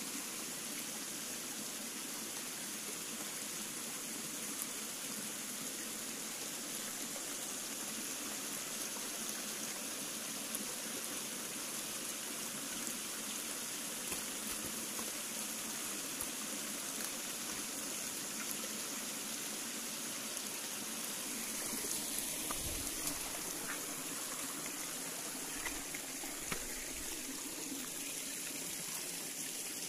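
Shallow rocky forest stream trickling and flowing between stones, a steady water sound, with a few low bumps of camera handling about two-thirds of the way through.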